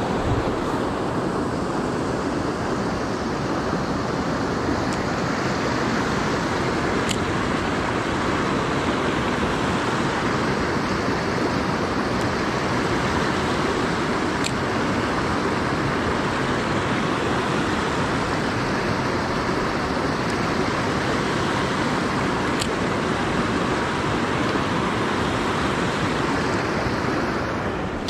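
Small mountain stream tumbling over rocks in little cascades: a steady rush of running water.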